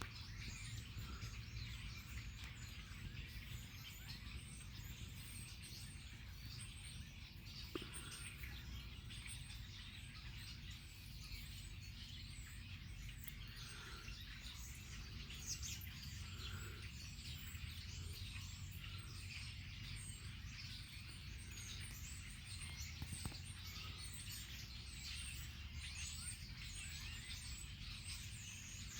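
A chorus of many small birds chirping and calling all around, faint, over a low steady background rumble.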